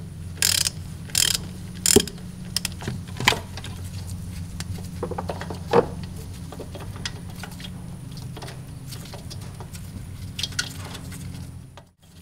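Ratchet wrench with a 12 mm socket working the EGR valve's mounting bolts loose: irregular clicks from the ratchet, sharper in the first few seconds and fainter later, over a steady low hum. The sound drops away just before the end.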